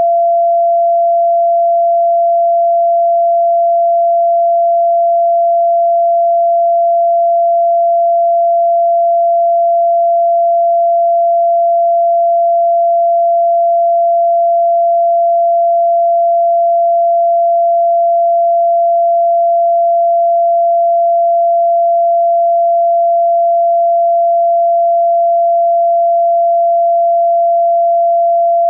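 Pure sine tone at about 683 Hz, the note F (Fa) in 432 Hz tuning offered as the Heart Chakra frequency, held unchanging in pitch and level.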